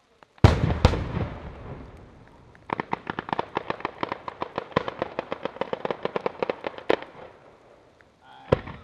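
Daytime ground fireworks battery going off: two loud bangs about half a second in, then a rapid string of firecracker cracks for about four and a half seconds ending in a sharper crack, and another single bang near the end.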